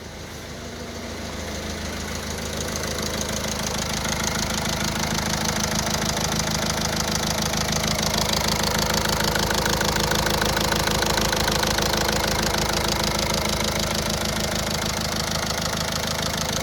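Citroën Berlingo's 1.6 HDi DV6 16-valve four-cylinder diesel running steadily with a fast diesel clatter, getting louder over the first few seconds. The engine was in for a tapping under the valve cover and now runs evenly, which the mechanic calls all good.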